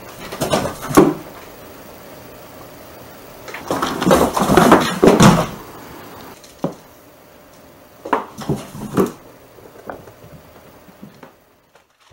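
Cardboard box knocked and scraped by a cat jumping in and scrambling about inside it, in separate bursts of thumps and scuffs. The busiest stretch comes about four to five seconds in, with single knocks later.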